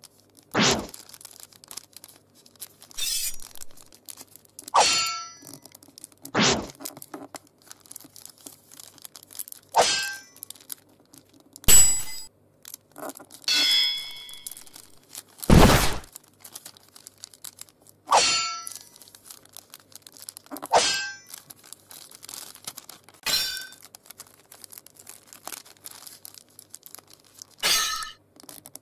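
Samurai-sword (katana) sound effects: about a dozen separate metallic clangs and ringing sword sounds, roughly one every two seconds.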